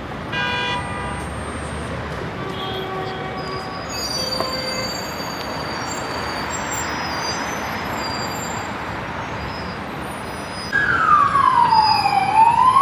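Steady city traffic noise with a brief horn-like tone about half a second in. Near the end an emergency vehicle siren starts wailing, sweeping down in pitch and then slowly back up, louder than everything else.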